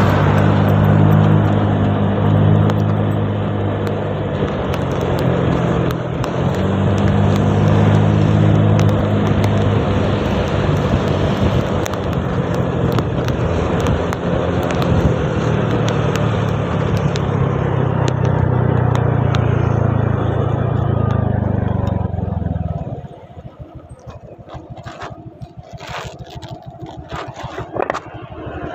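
Motorcycle engine running steadily under a dense rush of wind and road noise while riding on a wet road. About three-quarters of the way through, the engine and rush drop away suddenly, leaving scattered knocks and taps.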